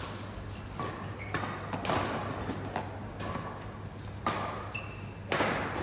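Badminton rackets hitting a shuttlecock in a rally, about six sharp, irregularly spaced hits that ring in a large hall, with the loudest near the end. Brief squeaks of shoes on the court mat come between the hits, over a steady low hum.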